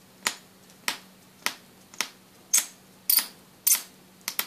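High-voltage Jacob's ladder (traveling arc) driven by a ZVS flyback driver, snapping with sharp electrical cracks at an even rhythm of a little under two a second, each crack a fresh arc striking across the rods. The cracks get louder in the second half, over a faint steady low hum.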